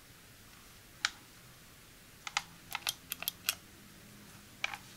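Sharp clicks and taps of hands handling the plastic body of a Kitchen Mama electric can opener, with no motor running. There is a single click about a second in, a quick run of six or seven clicks a couple of seconds in, and two more near the end.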